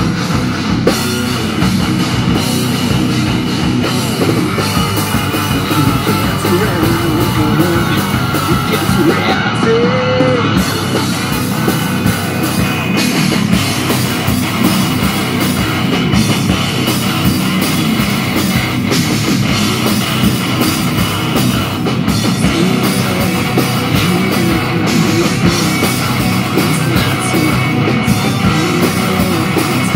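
Heavy metal band playing live and loud: distorted electric guitars, bass and drum kit, with a violin among them.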